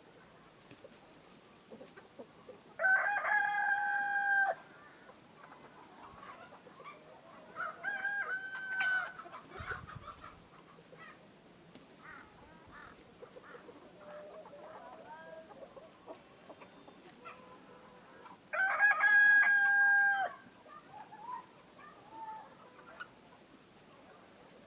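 Chickens calling: a long, drawn-out crow comes about three seconds in and another loud one near the end, with a fainter crow in between. Soft, short clucks fill the gaps.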